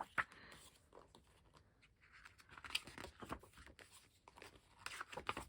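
Pages of an album photobook being turned and handled: faint paper rustles and small clicks, a few more of them in the second half.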